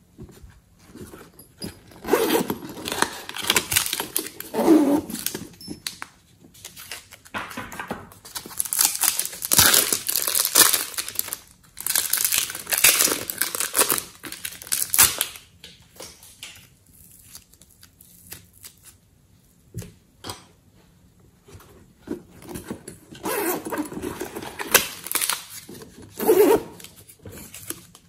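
Thin plastic bags of soft clay crinkling and tearing as the clay is squeezed and peeled out of them. The sound comes in about four bursts of a few seconds each, with quiet stretches between.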